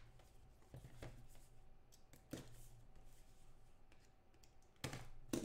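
Faint handling noises: a few light taps and scuffs of a trading card box and card pack handled on a table, the loudest pair near the end.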